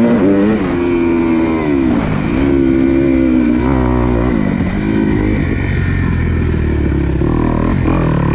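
A 250 motocross bike's engine under throttle as it is ridden: the pitch climbs just after the start and holds, drops about two seconds in as the throttle is rolled off, climbs again, then goes choppier and lower for the rest of the stretch.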